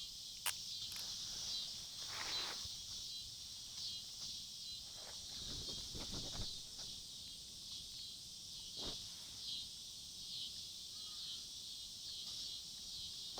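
A steady chorus of insects chirring, with a few soft rustles and a sharp click about half a second in.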